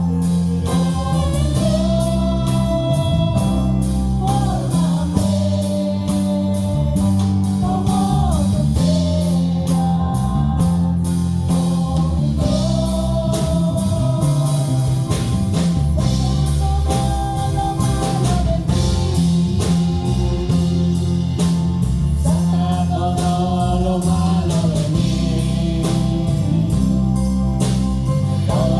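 Live worship band music: a slow song with steady bass, drums and guitar under a voice singing long, held melody notes.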